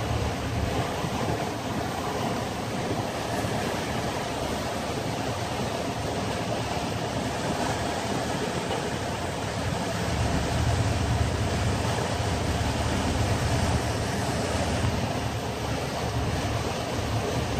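Motor boat under way at slow speed: a steady low engine rumble with water rushing along the hull, a little louder about ten seconds in.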